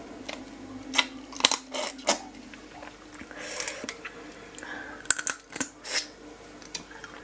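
Close-miked wet sucking, slurping and smacking as pickled raw blue swimming crab is pulled apart by hand and its meat sucked from the shell, in short sharp bursts scattered through, the loudest cluster about five seconds in.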